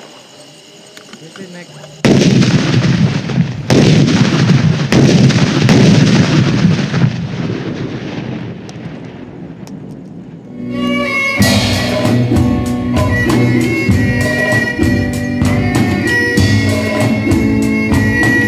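Gunfire breaks out suddenly about two seconds in: a dense burst with several heavy reports, fading away by about ten seconds. About a second later band music starts, with violin, electric guitar and a steady drum beat.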